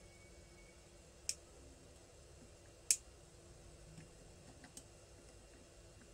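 Sharp metallic clicks of needle-nose pliers working a gudgeon-pin circlip into its groove in a Derbi D50B0 piston: two loud clicks about a second and a half apart, then a few fainter ticks.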